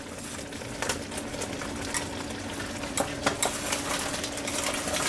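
Thickened soy-and-cornstarch sauce boiling and sizzling in a wok as fried chicken pieces and broccoli are pushed in from a tray with wooden chopsticks. A few sharp clicks and taps come from the chopsticks and food against the wok and tray.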